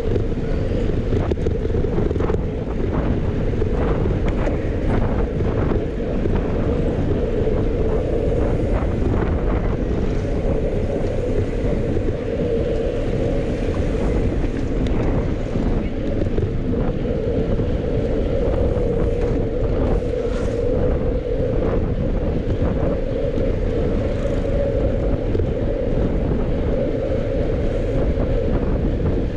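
Steady wind buffeting the microphone of a camera riding along on a bicycle, a constant low rush with no breaks.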